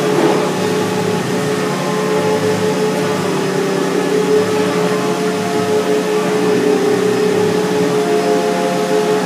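A vacuum motor running steadily with a constant hum and a mid-pitched whine.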